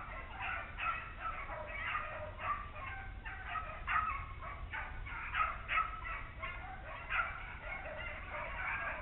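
A pack of beagles baying in full cry on a swamp rabbit's track, their overlapping voices coming steadily, two or three a second.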